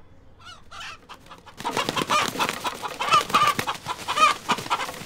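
Rooster clucking and squawking: a couple of short calls, then from about a second and a half in a dense, loud run of rapid squawks.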